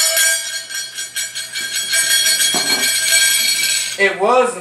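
Bright, continuous jingling of small bells, steady with a fast shimmer through it, that cuts off suddenly about four seconds in.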